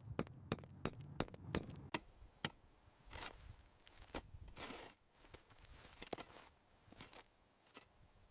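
Hand woodworking tools working timber: a run of sharp, irregular taps and knocks, quickest over the first couple of seconds, with two short scraping strokes in the middle.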